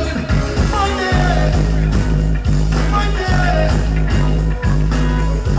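Live dancehall music played loud through a stage sound system: a man's voice deejaying into a microphone over a drum beat, with a heavy bass line coming in about a second in.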